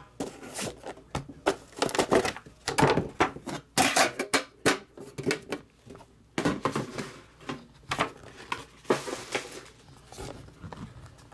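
Hands handling a trading-card box: the green hard case and its lid knocked and set down on a tabletop, and the white cardboard inner box handled, making irregular clicks and knocks, with a short scrape about nine seconds in.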